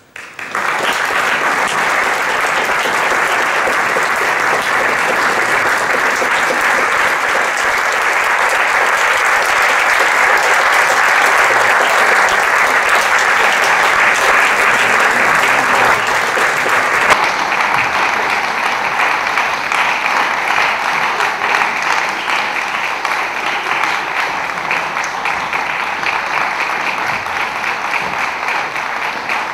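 Audience applauding. It breaks out suddenly just after the start and goes on steadily, easing slightly toward the end.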